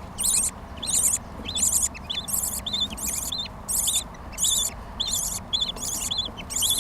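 Budgerigars chirping: a high, scratchy chirp repeated evenly about three times every two seconds.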